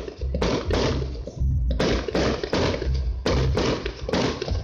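Aerial fireworks shells bursting in a rapid barrage, about three sharp bangs a second, each with a deep booming low end.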